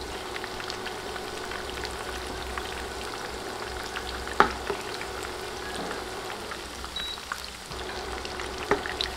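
Chicken pakoras deep-frying in hot oil: a steady crackling sizzle, with a few sharp clicks as a slotted spoon stirs them, the loudest about four and nine seconds in.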